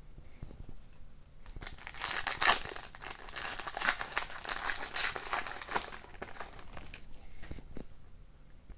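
Foil wrapper of a hockey card pack being torn open and crinkled by hand. The dense crackling starts about a second and a half in and is loudest through the middle. It dies down to quieter handling near the end.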